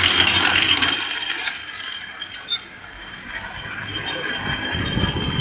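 Metal rollers of a long roller slide clattering and clinking under a rider sliding down. The clatter is loudest for the first two and a half seconds, then drops, with a lower rumble building near the end.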